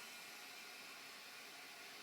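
Faint steady hiss from an IFÖ wall-mounted toilet's concealed cistern refilling after a flush.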